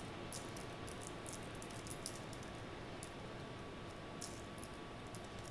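Quiet room noise with a faint steady tone and a scattering of faint light ticks.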